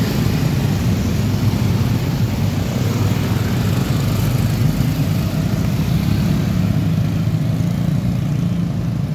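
Dense motorcycle traffic with a few cars: many small motorcycle engines idling and pulling away together in a steady, unbroken engine sound.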